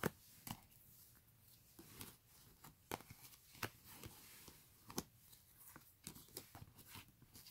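Photocards being handled and set down on a bedspread: a scattering of faint, short clicks and taps as the cards are picked up, slid and laid down.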